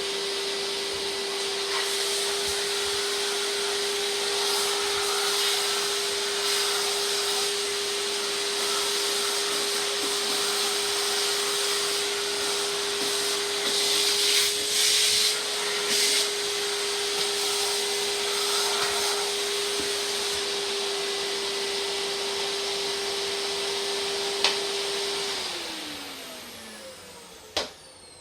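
Hoover Spectrum 800 canister vacuum running steadily with a constant whine, with a few brief louder rushes of air around the middle. Near the end it is switched off with a click, and its pitch falls as the suction motor winds down.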